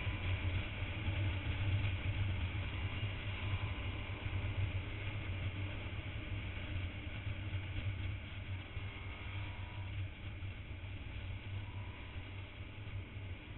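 Motorcycle engine running at road speed with wind rushing over the camera microphone: a steady low drone under a broad rushing noise, easing off slightly near the end.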